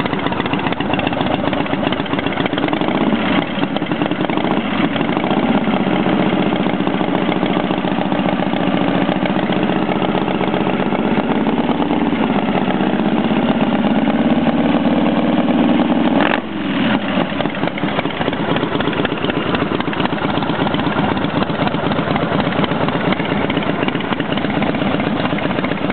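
Freshly rebuilt motorcycle engine idling steadily, running smoothly on its first run after the rebuild, with its choke pushed back in. The sound drops briefly and suddenly about two-thirds of the way through, then carries on.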